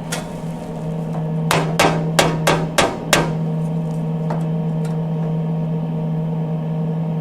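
Six quick hammer blows, about half a second apart, on the Mustang's sheet-steel inner-fender apron, knocking it out about a sixteenth of an inch to set the measurement across the aprons. A steady low hum runs underneath.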